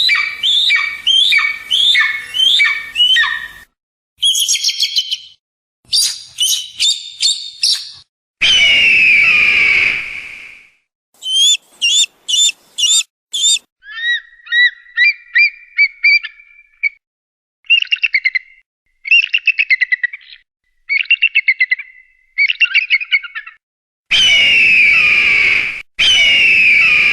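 Eagle calls in a string of short separate clips: runs of quick, high chattering notes and trills, and long harsh screams about nine seconds in and again near the end, with brief silences between them.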